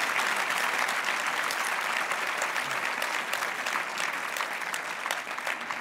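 Large audience applauding, a dense steady clatter of many hands clapping that eases off slightly near the end.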